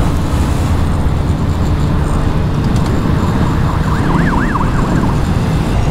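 Steady wind rush and road noise from riding a Honda Click 125i scooter, its engine running underneath. About four seconds in, a siren sounds faintly for about a second, its pitch rising and falling quickly several times.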